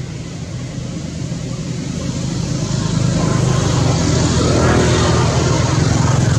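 Engine of a passing motor vehicle, growing steadily louder from about two seconds in as it draws near.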